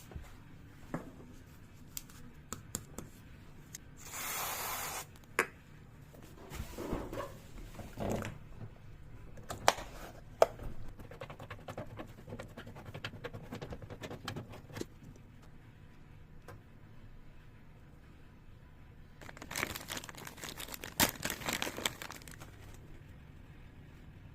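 Hands working on washing machine legs: scattered clicks and knocks of small parts, a brief tearing rustle about four seconds in, and a longer stretch of scraping and rustling near the end.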